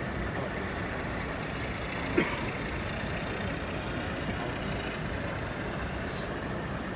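Steady background noise of a model railway exhibition hall as an OO gauge model freight train runs along the layout, with one sharp knock about two seconds in.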